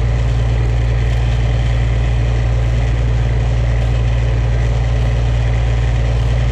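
An engine running steadily at constant speed, a loud, unchanging low drone.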